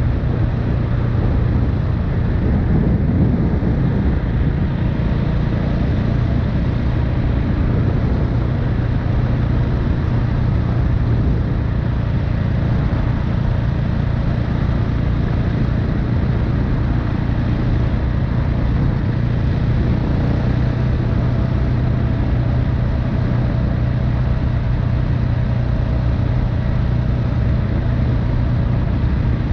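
KTM 690 Enduro R's single-cylinder engine and exhaust running steadily at an even engine speed, heard on board the moving bike.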